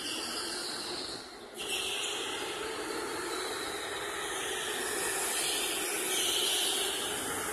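Electric go-karts running laps on an indoor track: a steady hiss of motor whine and tyre noise, dipping briefly about a second in.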